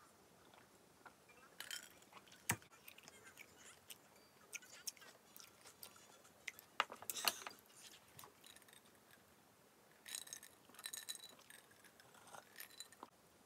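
Quiet eating sounds: a spoon clicking against clam shells and a ceramic bowl, with soft chewing. Near the end a glass clinks with a short ring as it is picked up.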